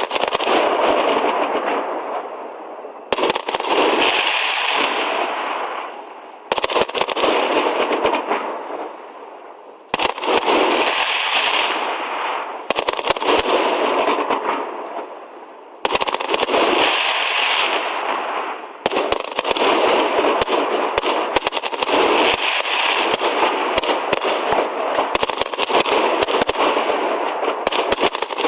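Fireworks display: waves of loud, rapid crackling and popping from bursting shells. A fresh barrage sets in suddenly every few seconds and dies away before the next, and the crackle grows almost continuous near the end.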